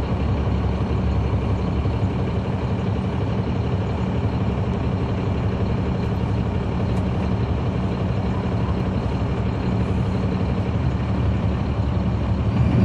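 Caterpillar C13 diesel engine of a NABI 40-SFW transit bus, heard from the rear seats inside the bus, running at a steady, unchanging note.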